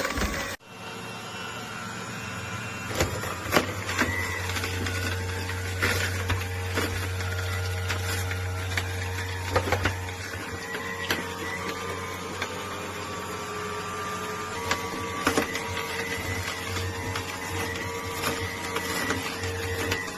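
Cold-press slow juicer running: a steady motor hum with scattered cracks and pops, typical of its auger crushing produce.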